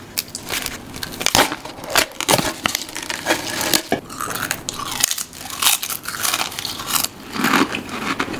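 Mr. Potato potato crisps being bitten and chewed: a close, irregular string of sharp crunches.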